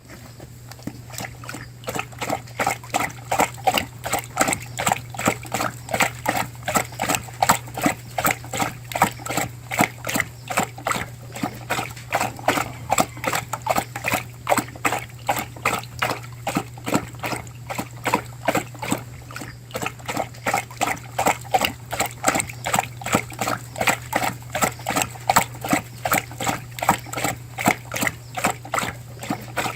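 A dog lapping water with its tongue: quick wet splashy laps at an even pace of about three a second.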